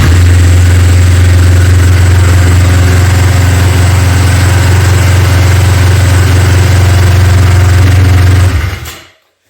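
Yamaha Phazer snowmobile's four-stroke twin engine running at a steady idle, then shut off near the end and dying away.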